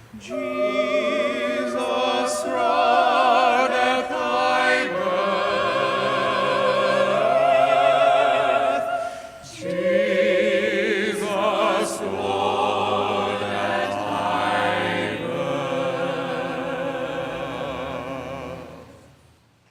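Choir singing with strong vibrato, a brief break between phrases about halfway through, fading out at the end.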